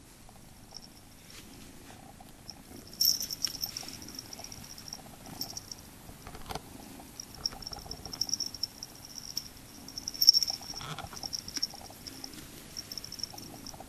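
Scottish Fold kitten purring. A thin high whine comes and goes alongside it, with sharper knocks about three seconds in and again about ten seconds in.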